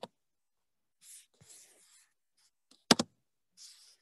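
Sharp clicks close to the microphone, a quick pair about three seconds in, with faint breathy hiss between them.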